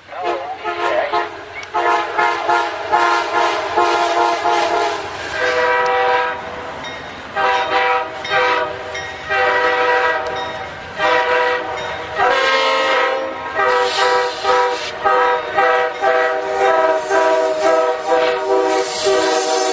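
Diesel locomotive multi-chime air horns sounding a long string of short and longer blasts, the chord changing from one blast to the next.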